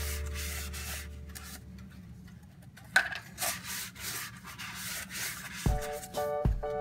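Stiff paper baking cups rubbing and rustling as they are pulled apart from a stack, with one sharp tap about three seconds in.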